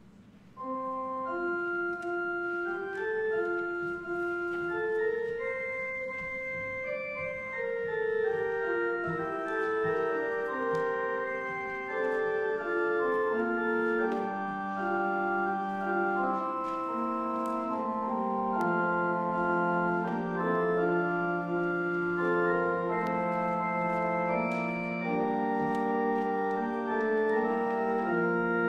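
Church organ playing the offertory hymn, starting about half a second in. Held notes, a single melody line at first, with more parts and a low bass line joining after several seconds.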